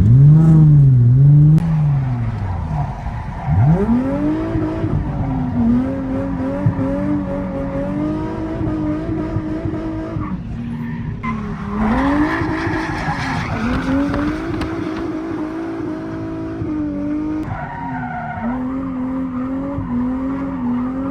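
A Nissan 350Z drift car's engine revving hard through a drift, rising and falling and held high for several seconds. About ten seconds in the revs drop briefly, then tyres squeal as the car slides, and the revs climb again.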